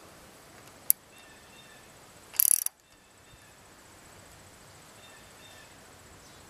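A stainless worm-gear hose clamp being cinched down on an aluminium antenna tube with a hand driver. There is a single sharp click about a second in, then a short burst of clicking and scraping from the clamp screw just before the halfway point. Faint chirping runs in the background.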